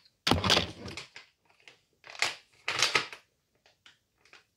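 Resealable plastic cookie bag crinkling as it is handled: a long crinkle in the first second, two shorter ones around two and three seconds in, then faint rustles.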